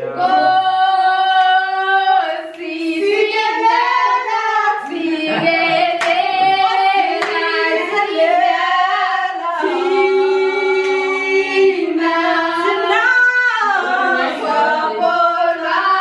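A group of women singing together without instruments, in harmony and holding long notes, with a few hand claps among the voices.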